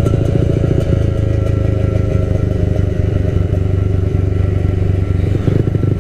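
Motorcycle engines running at a steady road speed, heard from the rider's seat. The note holds even throughout, with no revving, and dips briefly near the end.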